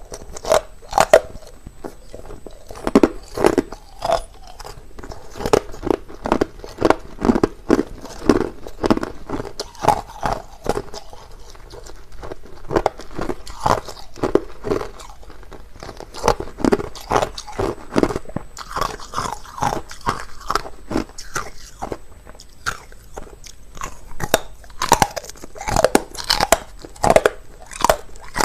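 Clear, hard crushed ice being bitten and chewed close to the microphone: a steady run of sharp crunches, several a second, with brief pauses between mouthfuls.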